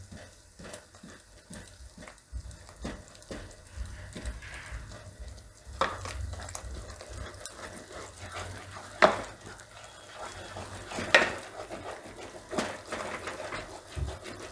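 Wooden rolling pin stirring and mashing thick flour dough in a metal pot, with many small clicks and scrapes and a few sharper knocks against the pot's side.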